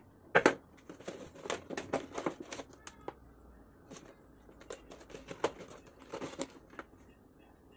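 Stiff clear plastic blister packaging of a 6x9-inch car speaker crackling and clicking as it is handled and turned over in the hands, in irregular bursts. The loudest is a sharp crack about half a second in.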